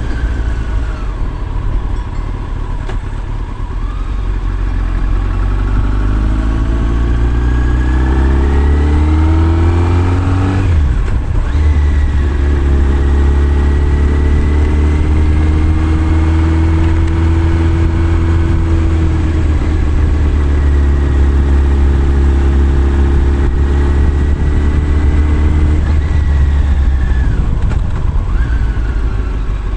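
Motorcycle engine heard from the rider's seat, with wind and road noise. The engine pulls with its pitch climbing, breaks off and drops about a third of the way in as the rider shifts up a gear, then cruises at a steady pitch and eases off near the end.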